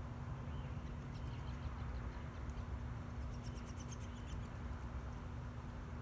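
Downy woodpecker calling: a run of short, high notes about a second in, then a quicker run of higher notes around the middle.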